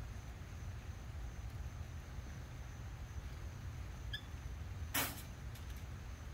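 Outdoor background of a steady low rumble and a faint high steady tone, with a few faint chirps about four seconds in and one short, sharp clatter about five seconds in as a liquor bottle and shot glass are handled.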